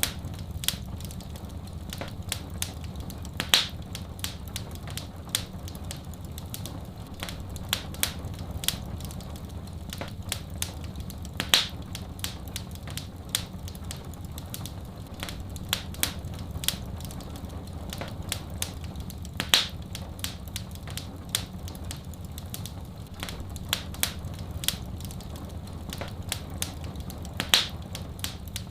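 Fireplace fire crackling, with many irregular sharp pops and snaps over a steady low rumble. A louder pop comes about every eight seconds.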